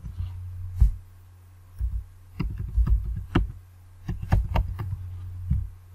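Computer keyboard keystrokes and mouse clicks, heard as dull knocks, scattered at first and then in two quick runs, over a steady low hum.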